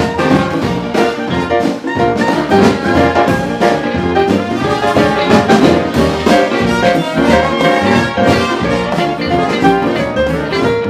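Live jazz band playing with brass horns (trumpet and trombone) over drums, with a steady beat.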